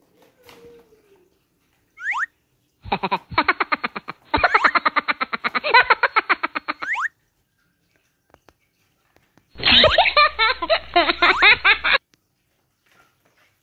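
Comedy sound effects laid over the footage: a short rising boing-like swoop that recurs every few seconds, and two longer bursts of a rapid, rhythmic effect, the first about three seconds in and the second about ten seconds in, each cutting off abruptly.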